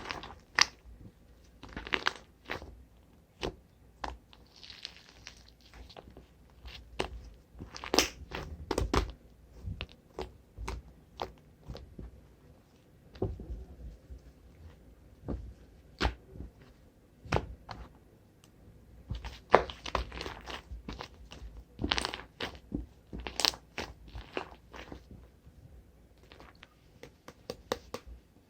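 Condensed-milk cream slime being squeezed and pressed by hand, giving irregular sticky clicks and pops, some single and some in quick crackling runs.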